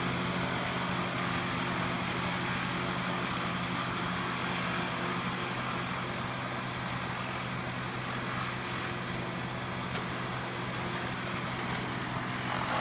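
Large wood chipper's diesel engine running steadily, a constant low hum with no change in speed.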